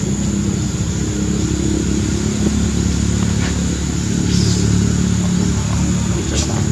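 An engine running steadily: an even, low drone that does not rise or fall.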